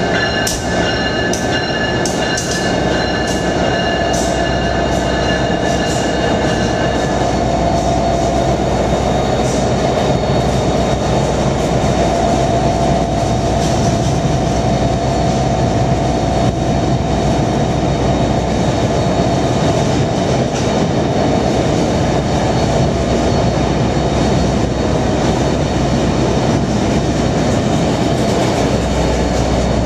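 Amtrak passenger train led by an AEM-7 electric locomotive passing close by, then its Amfleet coaches rolling past: a loud, steady rumble of steel wheels on rail with clickety-clack. Sharp clicks and a steady high whine sound in the first several seconds as the locomotive goes by.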